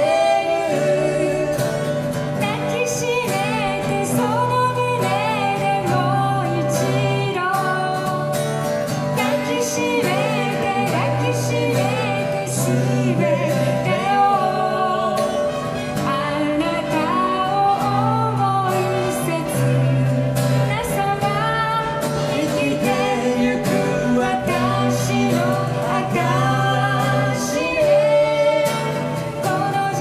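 Live acoustic duo: two acoustic guitars strummed while a woman and a man sing a slow pop song into microphones.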